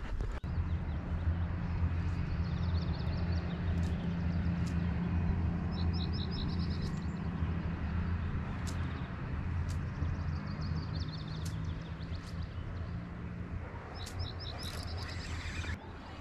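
Birds chirping in short repeated phrases several times over a steady low hum, which stops a couple of seconds before the end; a few sharp ticks.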